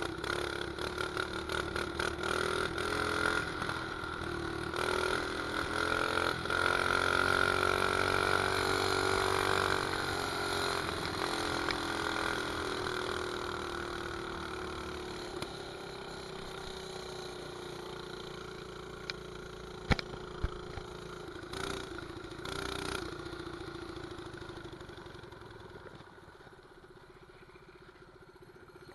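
Mini bike's 212cc single-cylinder four-stroke engine running under way, revving up and getting louder over the first ten seconds, then easing off and falling steadily in pitch and level as the bike slows. A couple of sharp clicks about twenty seconds in.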